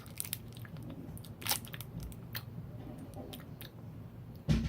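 A hard candy lollipop being bitten and crunched in the mouth: scattered short crunches and clicks, with a louder, sharper crunch near the end.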